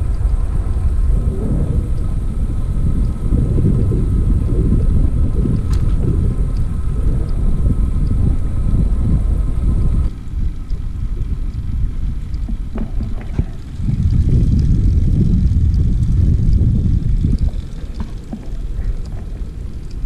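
Wind buffeting the microphone of a camera on a road bike while riding, mixed with tyre noise on asphalt, as a loud, uneven rumble. It eases briefly about halfway through and again near the end, with a few faint ticks in the second half.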